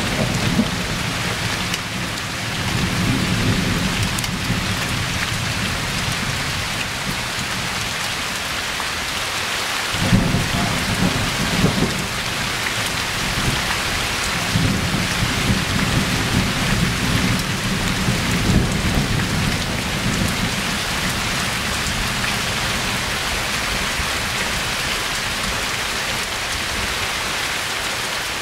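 Steady rain falling through a thunderstorm, with rolling thunder. A fresh rumble breaks in sharply about ten seconds in and rolls on for roughly ten seconds before fading back under the rain.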